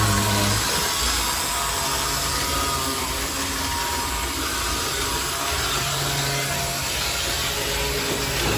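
Vintage AHM HO-scale motorized trolley running along model railroad track, a steady mechanical whirring that holds level throughout.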